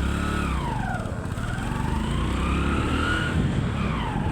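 Vehicle engine on the move: the revs drop over the first second, climb again for about two seconds, then fall off near the end.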